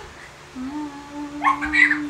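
A person humming one steady, held note. About a second and a half in, a short, louder voice sound rises in pitch over it.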